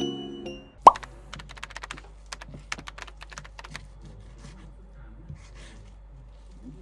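Soft music fades out, then a short rising blip, then a quick run of keyboard-typing clicks for about three seconds. After that come faint sounds of a knife cutting raw chicken thighs on a cutting board.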